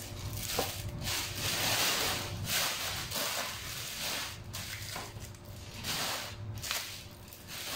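Plastic packaging and a plastic carrier bag crinkling and rustling in irregular bursts as items are handled and rummaged through.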